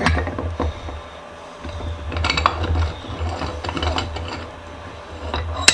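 Bench vise screw being spun out by hand: irregular metallic clicking and scraping of the steel screw and handle, with one sharp click near the end.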